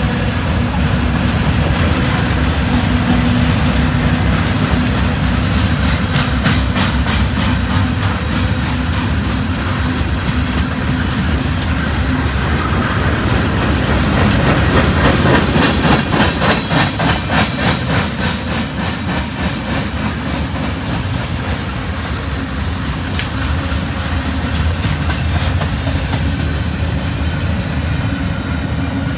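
Freight train cars rolling past close by: covered hoppers, boxcars and double-stack well cars give a steady rumble and wheel-on-rail noise. Through the middle there is a long run of fast, even clicking from the wheels, and the sound peaks and pulses about halfway through.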